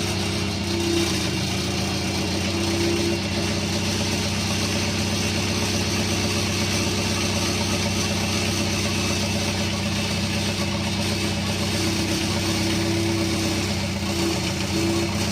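Yanmar excavator's diesel engine running steadily at an even speed.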